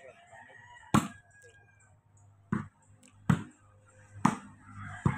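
Volleyball being struck by players' hands during a rally: five sharp smacks at irregular intervals, roughly a second apart.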